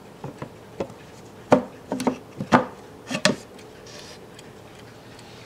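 The wooden back door of a Howard Miller 612-436 mantel clock case is pulled open by its knob and handled. It makes a series of knocks and clicks, loudest about a second and a half and two and a half seconds in.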